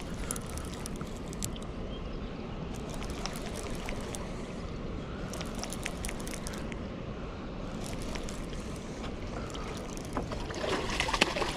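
Steady wind rumble on the microphone over flowing river water, with scattered light clicks from a baitcasting reel being cranked to bring in a hooked catfish. Near the end a louder splashing as the fish thrashes at the surface by the bank rocks.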